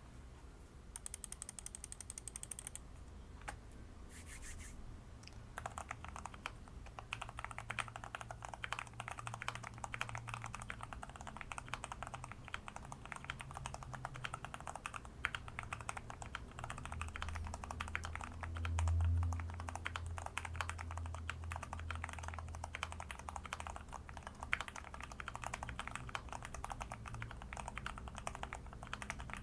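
Fast, continuous typing on a mechanical keyboard with Huano-made RK Brown tactile switches, springs lubed with Krytox GPL 105, settling into a steady stream of key clacks from about five seconds in. A brief low rumble comes about two-thirds of the way through.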